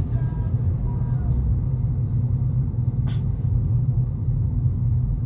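Steady low road rumble of a car, heard from inside the moving cabin, with a single short click about three seconds in.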